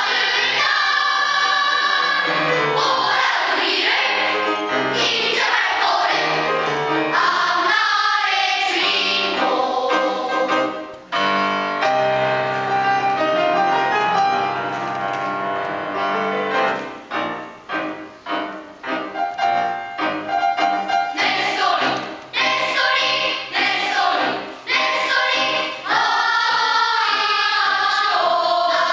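Children's choir singing together under a conductor, with a passage of short, detached notes between about 16 and 21 seconds in.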